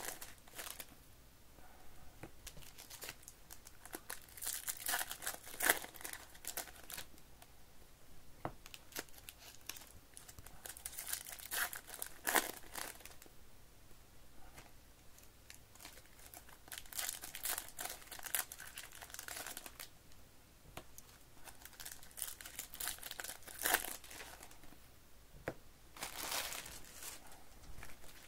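Foil wrappers of Topps baseball card packs crinkling and tearing as they are opened by hand, in bursts every few seconds.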